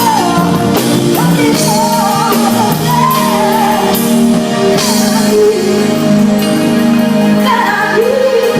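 A live band plays while a singer sings a melody over sustained chords, with recurring percussive hits.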